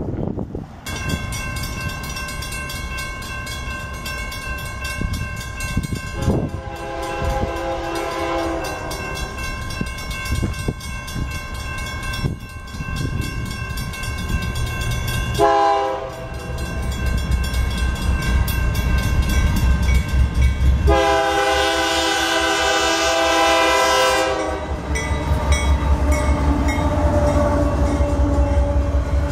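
Locomotive horn sounding three times: a long blast about a quarter of the way in, a short one around the middle and another long one later, over the steady ringing of a grade-crossing bell. Under it, the rumble of a BNSF locomotive hauling Metrolink bilevel commuter cars grows louder as the train comes up and passes close by.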